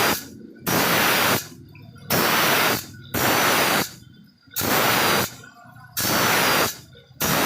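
A metal file rasping across the teeth of a hand saw to sharpen it, in steady strokes of under a second each, about one a second with short gaps between them.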